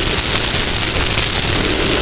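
Off-road race vehicle running, picked up by a front-mounted camera as a loud, steady rushing hiss over a low rumble.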